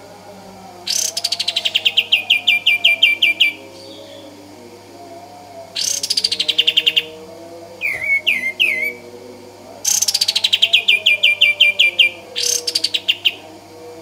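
Olive-winged bulbul (kapas tembak) singing its rapid-fire 'tembakan' song: four bursts of quick repeated notes, each opening with a falling sweep and rolling down in pitch, with a short phrase of a few lower notes about eight seconds in.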